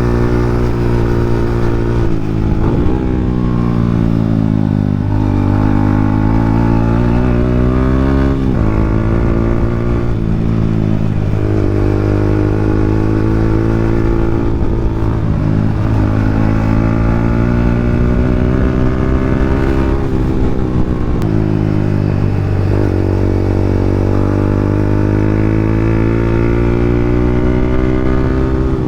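2015 Yamaha Sniper 150's single-cylinder four-stroke engine running through an open EXOS R6 exhaust pipe with no silencer, its pitch climbing and then dropping sharply again and again.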